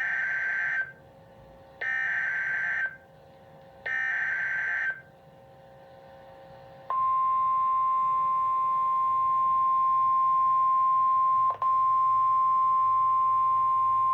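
Emergency Alert System SAME header: three one-second bursts of screeching digital data tones about two seconds apart, encoding the flash flood warning. About seven seconds in, the steady attention tone begins, a single long pitch near 1 kHz with a brief dropout about eleven and a half seconds in.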